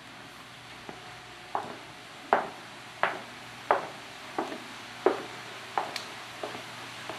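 Footsteps of hard-soled shoes on a tiled floor, a sharp click about every 0.7 seconds, starting about a second in, over a steady hiss.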